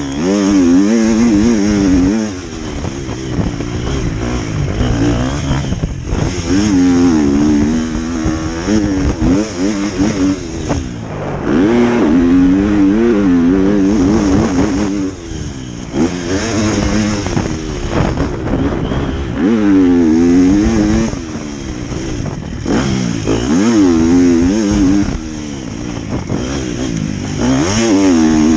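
Motocross bike engine on a dirt-track lap, its pitch climbing hard and falling away again and again as the throttle is opened and shut, with brief off-throttle dips every few seconds.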